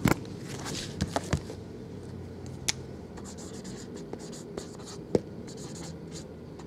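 Black marker pen writing on the tops of cardboard trading-card boxes: a long run of short scratchy strokes. It follows a few knocks near the start and about a second in, as the boxes are set down on the table.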